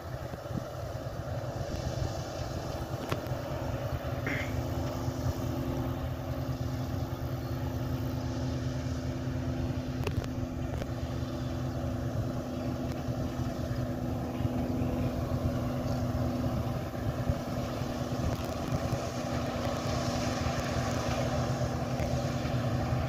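Claas Lexion 550 combine harvester threshing wheat: a steady drone of engine and threshing machinery with a constant hum in it, slowly growing louder as the machine comes closer.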